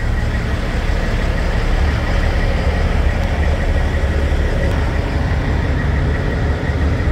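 Steady low rumble of big-rig diesel engines idling, with a steady hiss over it.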